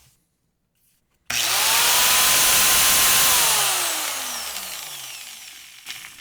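Warrior angle grinder, running unloaded with no disc fitted, switched on about a second in and running at full speed with a high whine. After about two seconds it is switched off and winds down, its pitch falling steadily as it coasts to a stop. It runs smoothly after its gearbox was reassembled with the missing gear key.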